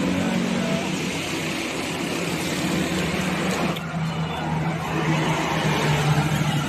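Bus engine running steadily at close range, a low even hum over the noise of street traffic.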